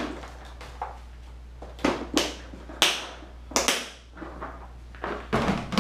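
Clear plastic compartment organizer box being handled and rummaged through: an irregular string of sharp plastic clicks and knocks.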